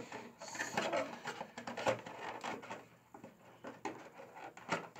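Cardboard phone box and its contents being handled: irregular rubbing, scraping and light knocks as the lid is fitted and pushed to close, with a sharper knock about two seconds in and another near the end.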